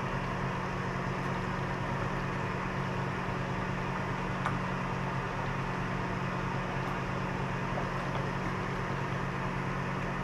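A steady low mechanical hum, with one faint click about four and a half seconds in.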